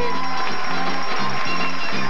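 Upbeat game-show band music with a bouncing bass line, played over studio audience applause and cheering.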